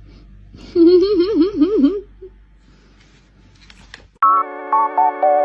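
A quickly wavering, warbling call for just over a second, then steady electronic synthesizer music starting near the end.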